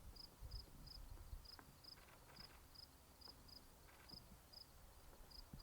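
Cricket chirping faintly and regularly: a short high chirp about two or three times a second.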